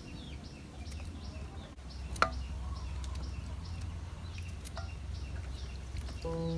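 A knife peeling and cutting green bananas held in the hand, with a sharp click about two seconds in and a few softer ticks. A bird chirps repeatedly in the background over a low steady rumble, and music comes in near the end.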